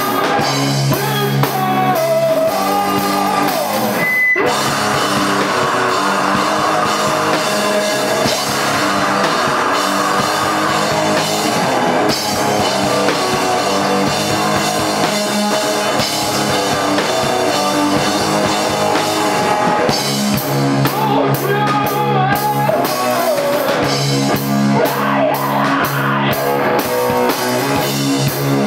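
Live rock band playing with guitar, bass and a drum kit. The cymbals come in hard and thick in the last third.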